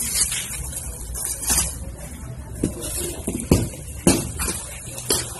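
Cardboard boxes and packaged goods being handled: rustling with a few knocks, the sharpest two about three and a half and four seconds in, over a steady low hum.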